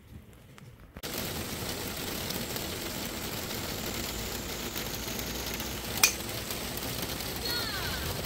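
Steady hiss of falling rain that starts abruptly about a second in, with one sharp crack about six seconds in.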